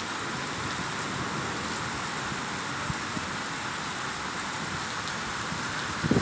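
Heavy rain falling in a steady, even hiss as a storm downpour picks up again. There is a brief bump right at the end.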